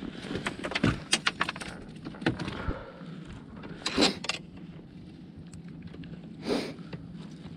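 A run of sharp clicks and light knocks, like gear being handled in a boat, thickest in the first three seconds, with two short noisy rushes about four and six and a half seconds in.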